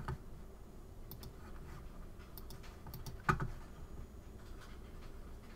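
Scattered light clicks of a computer keyboard and mouse as software settings are changed, with one louder tap about three seconds in.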